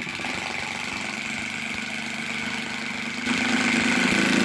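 Power drill driving a screw into plywood subfloor, running steadily and getting louder and lower about three seconds in as the screw bears down.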